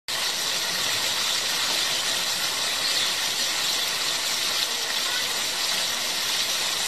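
Steady, even hiss that starts abruptly with a cut and holds the same level throughout, with no separate crunches or knocks standing out.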